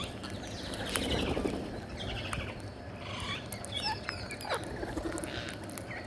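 Rose-ringed parakeets calling, with short chirps and squawks scattered throughout, several of them falling in pitch, along with a few brief sharp clicks.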